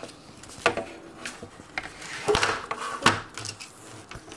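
Hollow pink plastic art desk being handled and moved on a tabletop: a few sharp plastic knocks and clacks with some rustling between them.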